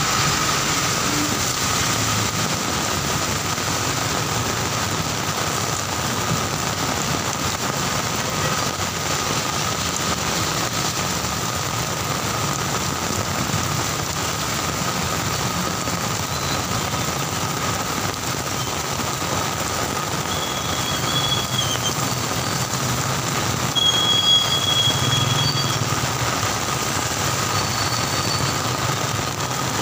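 Heavy rain hissing steadily on a wet road, mixed with the engines of slow-moving cars and motorcycles in traffic. About three quarters of the way through a vehicle passes closer and the sound swells, with two short high-pitched squeals.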